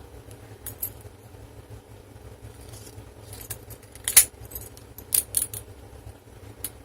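Light metallic clinks and clicks from handling a lock-picking set and clear practice lock: a handful of scattered short ticks, the sharpest about four seconds in and a quick pair a second later, over a low steady hum.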